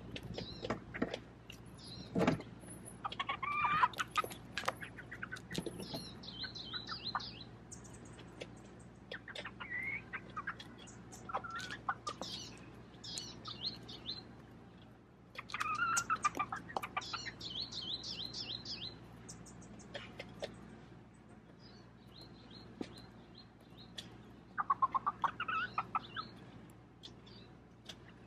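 Young chickens clucking in short bursts while pecking feed from a bowl, their beaks making sharp clicks, with small birds chirping and warbling in the background.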